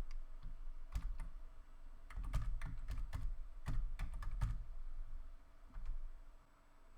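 Typing on a computer keyboard: irregular runs of key presses, slowing and stopping near the end.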